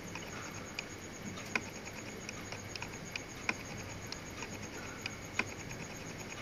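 Steady background hiss and faint hum, dotted with a dozen or so small, irregular clicks, a few of them sharper than the rest.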